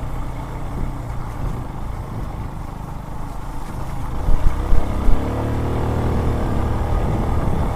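Motorcycle engine running under load on a muddy off-road climb. It revs up with a rising pitch about halfway through, with a few loud thumps just before.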